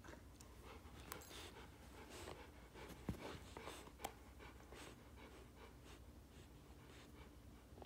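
A teething American Akita puppy gnawing a plush toy: faint chewing and mouthing with scattered small clicks, the sharpest about three seconds in.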